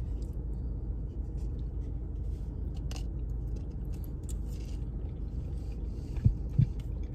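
Two people quietly eating from paper plates with plastic forks: faint chewing and small utensil clicks over a steady low hum inside a car, with two dull thumps near the end.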